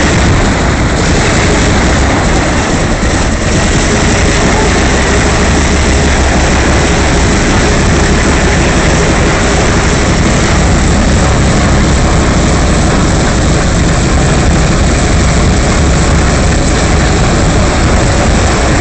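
Antonov An-2's nine-cylinder Shvetsov ASh-62 radial engine running steadily on the ground, with its propeller turning.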